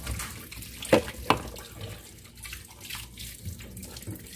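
Dishes being washed by hand at a sink: running water, with two sharp clinks of dishes or glassware about a second in.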